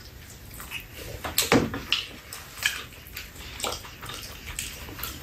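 Close-up eating sounds: wet chewing and lip smacks as braised chicken is gnawed off the bone by hand, with irregular sharp smacks a few times over the seconds.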